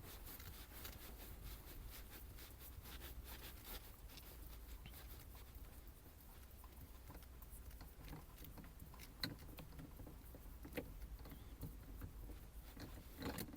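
Faint handling noise of a 2010 Mazda 3's worn shifter knob being unscrewed by hand from the shift lever: soft rubbing and scattered light ticks, with two slightly sharper clicks about nine and eleven seconds in.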